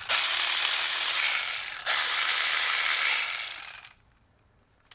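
Husky 12-volt 3/8-inch cordless ratchet running unloaded in two triggered bursts of about two seconds each, the motor spinning up with a buzzing ratchet-head clatter. It is still working after being used on lug nuts. A small click near the end.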